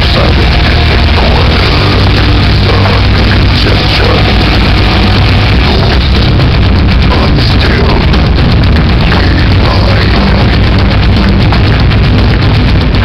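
Loud rock music, dense and unbroken.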